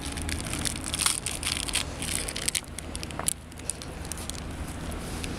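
Snow crunching and crackling in irregular clicks, over a steady low hum.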